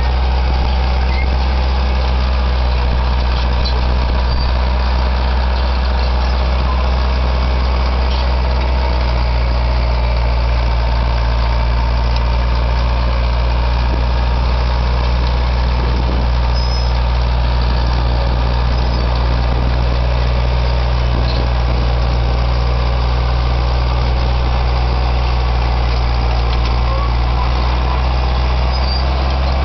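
Caterpillar D4D bulldozer's diesel engine running at a steady speed, a loud, even low drone.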